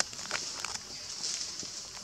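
Macaques moving over dry leaf litter, with short rustles and light steps in the first second, over a steady high-pitched hiss.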